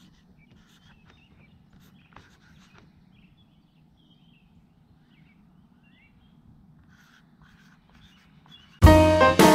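Faint strokes of a permanent marker writing on a sign, over a low steady outdoor hum with a few faint bird chirps. Near the end, loud jazz music starts suddenly.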